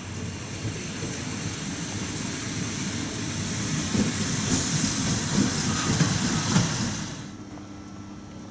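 Train running past on the station tracks, its wheels clattering over rail joints, growing louder and then dropping away sharply about seven seconds in.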